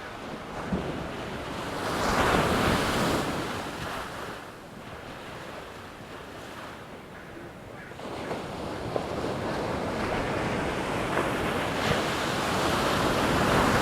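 Ocean surf: waves rolling in and breaking, two swells about ten seconds apart with a quieter wash between them.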